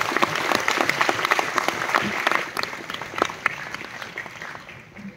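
Auditorium audience applauding, a dense patter of many hands clapping that fades away over the last two or three seconds.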